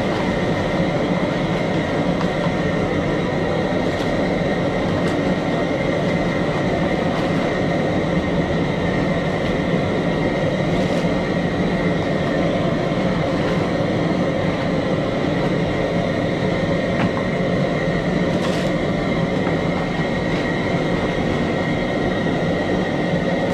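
Steady rushing noise of a gas burner under a large stock pot of crawfish boil, with the water bubbling at a boil; a faint steady whine runs through it.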